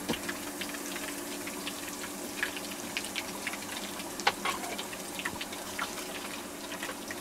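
Chicken karaage deep-frying in a saucepan of hot oil: a steady sizzling hiss full of small pops and crackles, with a few sharper clicks near the middle and a faint steady hum underneath.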